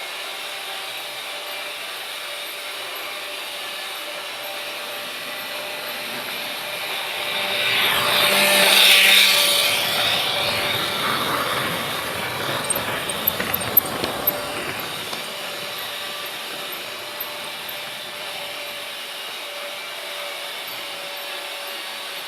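Freight train rolling along with a steady noise that swells loudest about nine seconds in, followed a few seconds later by a short run of sharp clacks before it settles back to the steady rumble.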